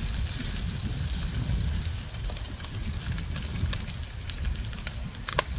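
Cooking on a lightweight wood-burning hot tent stove: a steady crackling hiss over a low rumble, with a few sharp clicks near the end.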